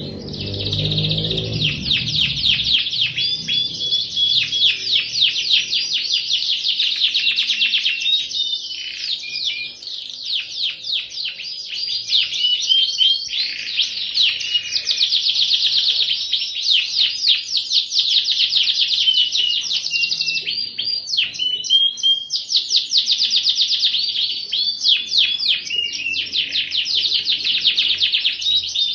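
Domestic canary in full song, a long unbroken run of rapid trills and chirps, with short breaks about 9 and 21 seconds in.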